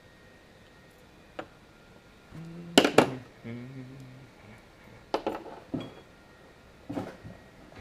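Small metal clicks and clinks as a padlock and its parts are handled: a handful of separate sharp clicks, the loudest a pair close together about three seconds in.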